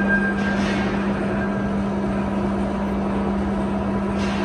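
Steady machine hum with a constant rushing noise underneath, typical of workshop machinery running.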